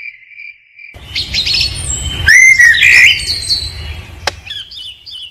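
A cricket's steady pulsing trill, then about a second in birdsong takes over: loud chirps and whistles, loudest in the middle and lighter toward the end.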